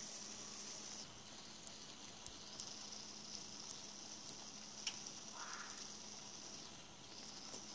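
Faint steady high hiss with a low hum under it and a few scattered small ticks: quiet kitchen room tone, with no distinct event.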